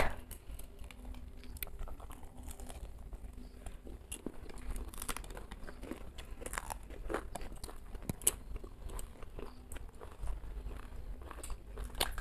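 Two people biting and chewing crunchy fried snacks and green chillies: quiet, irregular short crunches and clicks.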